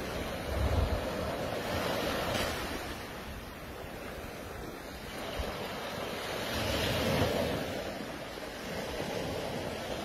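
Small waves breaking and washing up a sandy beach, swelling louder twice as waves come in, with wind buffeting the microphone in low rumbling gusts.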